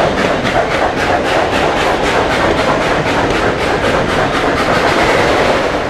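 Tweetsie Railroad's narrow-gauge steam train running, a steady loud rumble with a quick regular beat of about four or five a second.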